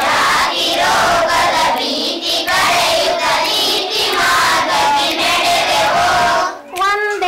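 A class of schoolchildren singing a line of a Kannada song together, echoing their teacher's lead. Many voices blend into one chorus that stops shortly before the end.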